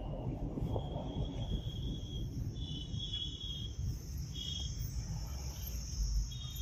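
Low, steady road and wind rumble of a moving car, with high, even insect trills from outside that start and stop several times.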